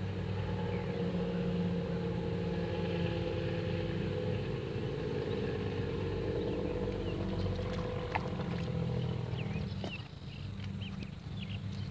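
A steady engine hum that fades away about ten seconds in, followed by a few short bird chirps.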